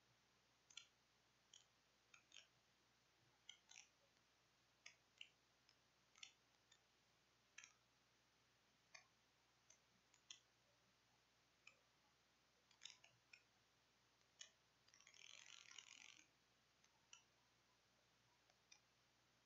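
Near silence, broken by faint, irregular clicks about once a second and a burst of hiss lasting about a second roughly three-quarters of the way through.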